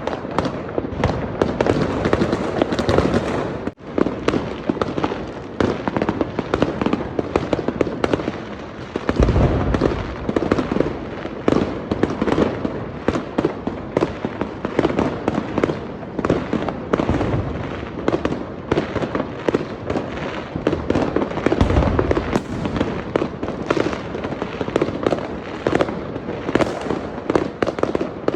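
Fireworks going off in a dense, continuous barrage of rapid bangs and crackles, with a few deeper booms standing out, one about nine seconds in and another about twenty-two seconds in. The sound breaks off for a moment about four seconds in.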